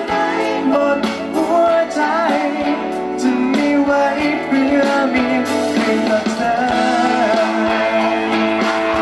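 Live pop-rock performance: a male singer singing into a microphone over electric guitar and band accompaniment.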